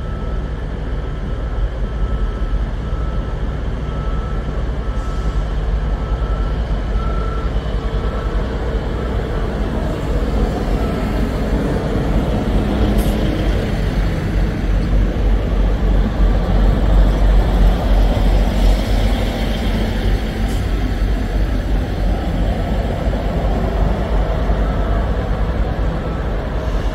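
Diesel multiple-unit train running with a steady low rumble that grows louder about halfway through.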